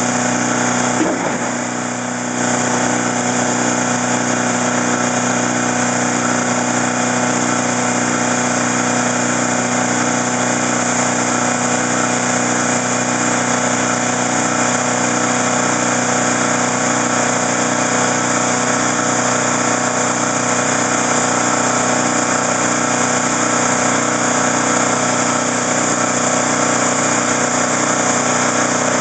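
Boat engine running steadily at constant speed, a level drone that dips briefly about a second in.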